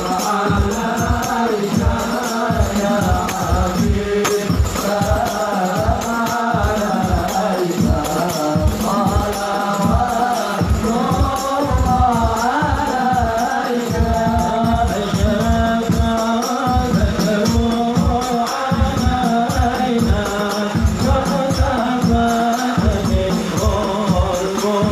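Sholawat, Arabic devotional singing in praise of the Prophet, carried by voices over a quick, steady beat of hand drums.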